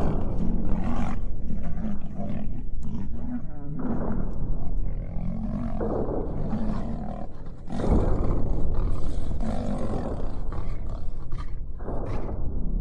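Lion and tiger roaring during a fight: a run of loud, rough roars one after another, each a few seconds long, with a deep rumble beneath.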